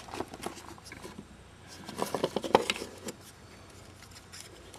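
Handling noise as a camera is picked up and moved: a few scattered clicks and knocks near the start, then a denser run of knocks and rubbing about two seconds in.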